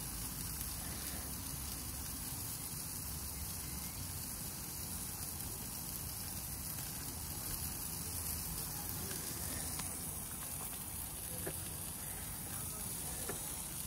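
Tomahawk steak sizzling steadily as it cooks, an even hiss with a few faint pops near the end.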